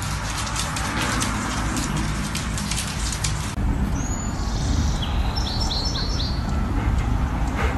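Dense crackling patter until an abrupt cut, then a bird's short high chirps: one falling chirp, then four in quick succession, over a steady low rumble.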